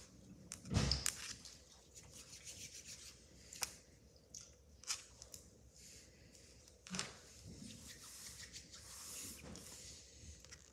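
Hands rubbing, pressing and shaping a lump of yellow Play-Doh into a star, soft rubbing with a few light taps and clicks, and a dull thump about a second in.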